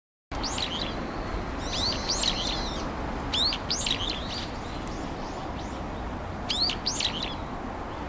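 Brown-eared bulbul calling: four bouts of short, shrill rising notes over a steady background hiss. The sound cuts in suddenly just after the start.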